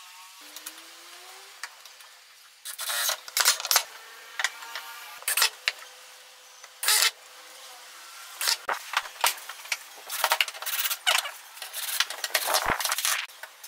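A cordless drill driving screws into metal hinges in a series of short bursts, between clinks of metal hardware and knocks of wood being handled.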